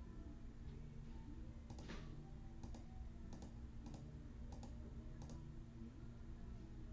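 Faint, scattered clicks of a computer mouse and keyboard, a few light clicks spread over several seconds, over a faint steady low hum.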